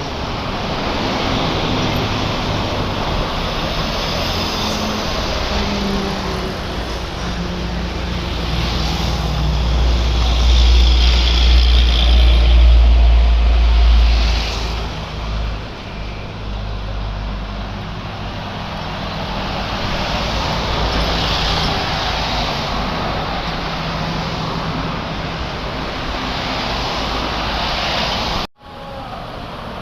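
Steady traffic of motorcycles and cars passing on a busy road, engines and tyres blending into a continuous rush. A much louder, deeper pass swells about ten seconds in and fades away by about fifteen seconds. The sound cuts out abruptly for a moment near the end.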